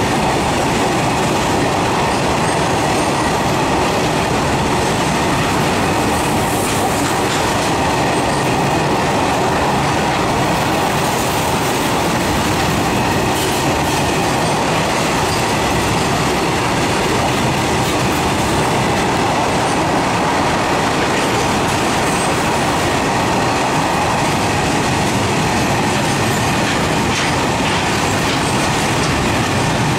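Empty open-top freight wagons rolling past at speed: a steady, loud rumble and rattle of steel wheels on rail, with scattered sharp knocks.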